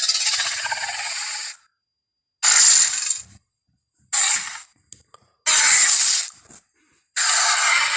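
Tyrannosaurus rex sound effect from the Jurassic Park films: five separate raspy, hissing bursts with little low rumble, the first about a second and a half long and the rest shorter, with brief silences between.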